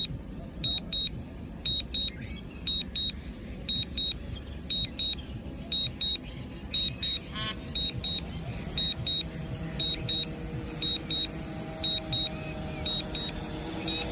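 DJI drone's return-to-home alert: a high double beep repeating about once a second over a steady low hum, with a short buzz about halfway through.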